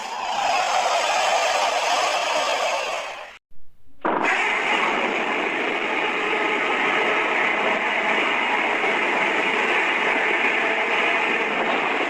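Godzilla sound effects: a harsh, rushing blast of about four seconds that cuts off sharply, then after a short silence a second, longer one of about nine seconds.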